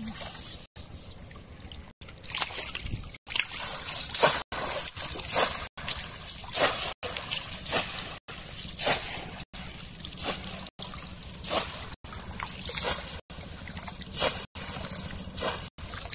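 Water sloshing and splashing as people wade chest-deep through a pond, in uneven surges about once a second, with the sound cutting out briefly at regular intervals.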